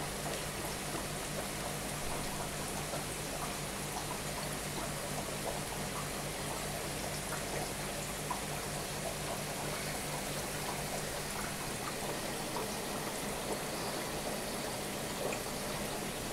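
Steady bubbling and trickling of water from air-driven sponge filters in aquarium tanks, full of small bubble pops, over a low steady hum.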